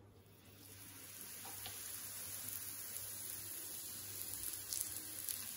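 Coconut oil sizzling faintly on hot tawas under chapathis as it is drizzled over them; the hiss builds up about half a second in and then holds steady.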